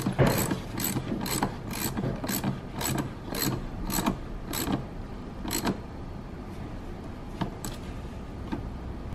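Socket ratchet clicking in short bursts about twice a second as it is swung back and forth, tightening the hose clamp on an air intake duct. The clicks thin out to a few scattered ones in the last few seconds.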